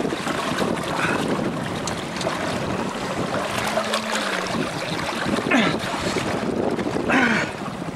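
Sea water rushing and splashing past the stern of a sailboat under way, with wind buffeting the microphone. Two brief louder sounds stand out about five and seven seconds in.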